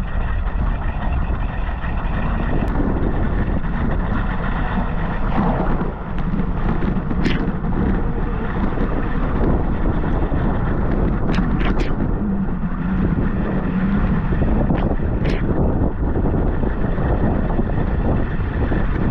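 Strong wind buffeting the microphone in a steady, loud rush, with a handful of short sharp ticks in the middle stretch.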